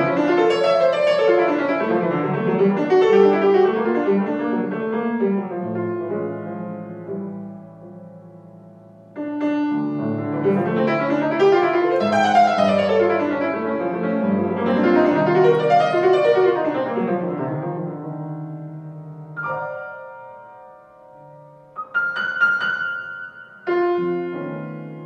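Grand piano played solo in a jazz style, in two phrases of fast runs that sweep up and down the keyboard over held bass notes, each dying away. Near the end the playing thins to a few separate chords.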